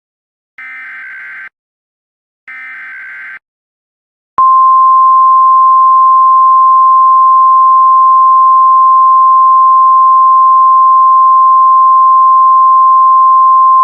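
Emergency Alert System signal. Two short, warbling bursts of SAME header data tones about a second apart mark the start of a new alert. About four seconds in, a single steady, loud attention tone follows: a 1050 Hz NOAA Weather Radio–style tone.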